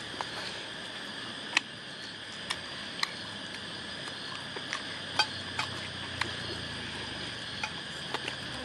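Metal forks clinking against a plate of noodles, about ten short sharp clinks scattered through, over a steady high-pitched insect drone in the background.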